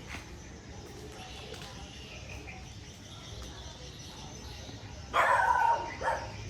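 Two loud short vocal calls about five seconds in, the first lasting under a second and the second briefly after it, over faint background noise.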